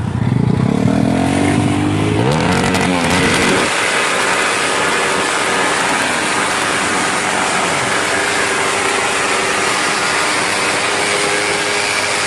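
Drag-tuned motorcycle engine being revved on the stand: a few quick throttle blips with the pitch rising and falling, then held at a steady high rev with a harsh, noisy tone.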